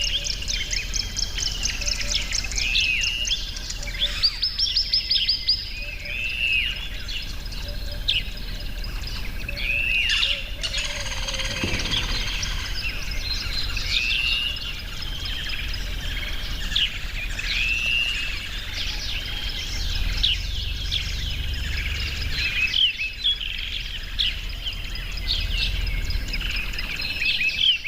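Several birds calling: a repeated arching chirp every second or two, overlaid with fast, rattling trills, over a steady low outdoor rumble.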